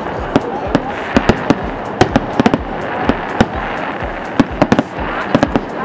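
Fireworks display going off: a rapid, irregular string of sharp bangs and crackles, several a second, over a steady background hiss.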